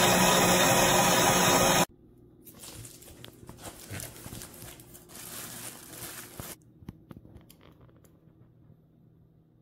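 HOWORK SM-1510 electric stand mixer running steadily with its wire whisk turning in the stainless steel bowl, stopping abruptly about two seconds in. Faint scraping and rustling noises and a few clicks follow.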